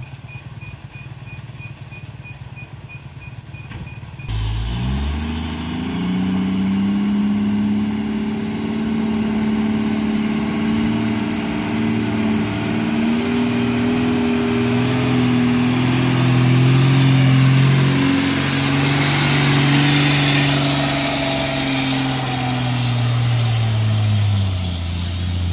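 Loaded diesel cargo truck labouring up a steep grade under heavy load. After a faint rumble, the engine comes in loud about four seconds in, then runs with its pitch slowly sagging as it lugs, a sign it is struggling and losing power on the climb.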